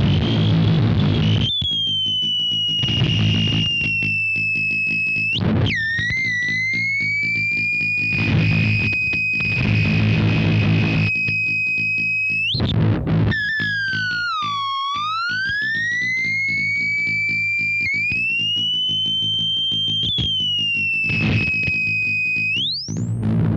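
Circuit-bent Waldman flanger pedal screaming with effects noise: a high whistling tone that glides in pitch, drops suddenly about a quarter of the way in, sweeps down and back up near the middle and climbs steeply at the end. Underneath runs a low distorted buzzing drone broken into a fast, even stutter.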